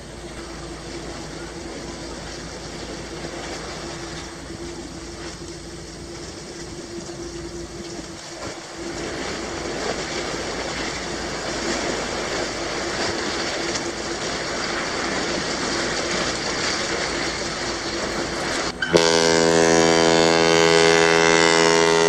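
The lake freighter CSL Assiniboine sounds one long, loud blast on its horn, starting suddenly near the end. Before it, a steady rushing noise grows louder as the ship draws near.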